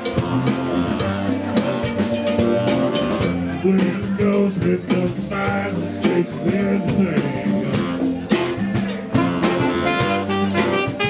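Live band playing loud through the PA, with a drum kit keeping a steady beat under guitar and bass.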